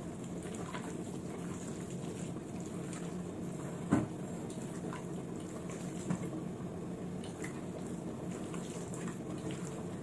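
A hand squishing and turning wet chicken marinade of curd and spices in a steel pot, with faint irregular ticks and one sharper knock about four seconds in, over a steady low hum.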